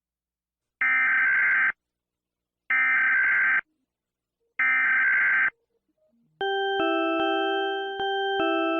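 Emergency Alert System alarm: three short bursts of shrill digital data tones (the SAME header), each just under a second and about two seconds apart. Then a loud electronic alert tone starts, stepping between notes every fraction of a second.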